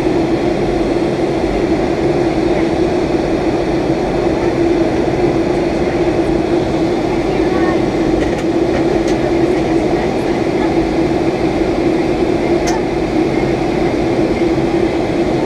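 Steady cabin noise of a Boeing 757-200 in descent: engine and airflow roar with a constant low hum.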